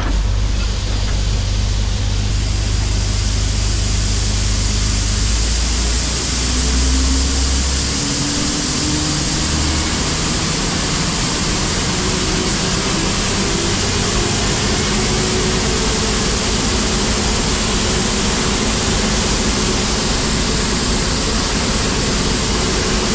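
New Holland CX5090 combine harvester running loud and steady while unloading shelled corn into a trailer. About six to ten seconds in, a deep rumble eases and the engine note climbs slowly in pitch.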